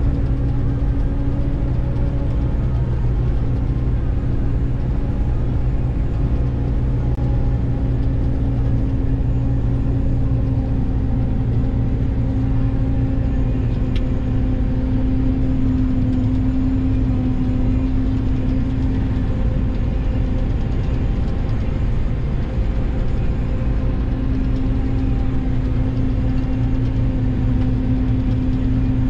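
Claas Jaguar 950 self-propelled forage harvester running steadily under load while cutting and chopping maize, heard from inside the cab as an even engine drone with a constant mid-pitched hum.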